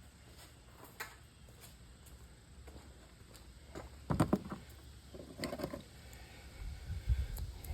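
Scattered clicks and knocks of TV scrap parts being handled and pulled apart, with a louder clatter about four seconds in and again at about five and a half seconds.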